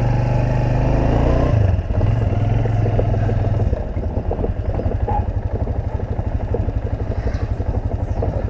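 Suzuki YES 125 motorcycle's single-cylinder four-stroke engine running at low speed as the bike rolls slowly along. The engine note drops about two seconds in and settles into a low, even putter.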